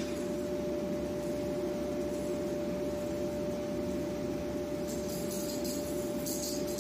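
Powder coating booth machinery running: a steady hum with a constant whine. Short bursts of air hiss come about five seconds in and again near the end.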